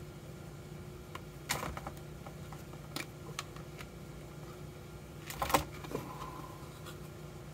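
Hard plastic shell of a rugged phone case clicking and snapping as it is pried apart with a flat screwdriver. There are a few scattered clicks, then a louder burst of snaps about five and a half seconds in as the frame comes away.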